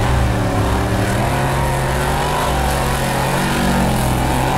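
Off-road race truck's engine running hard as the truck drives across dirt, its pitch rising and falling with the throttle.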